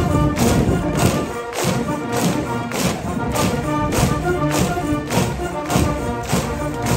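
School brass band with sousaphones playing a cheering song over a steady drum beat, a little under two beats a second.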